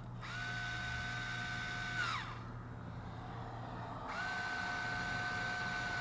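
Black & Decker cordless screwdriver turning a screw in a brass mortise lock cylinder: two runs of about two seconds each, a steady motor whine that drops in pitch as it winds down at the end of each run.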